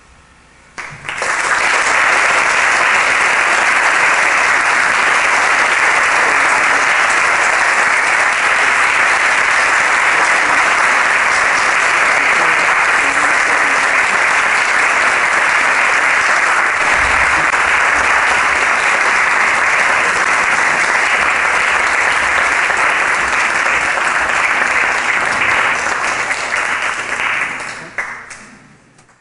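Audience applauding at the end of a performance. The applause breaks out suddenly about a second in, holds steady, then dies away near the end.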